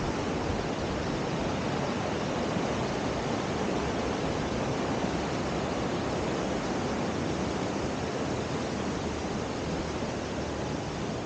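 Rushing water of a shallow rocky stream flowing over stones, a steady hiss that grows a little quieter near the end.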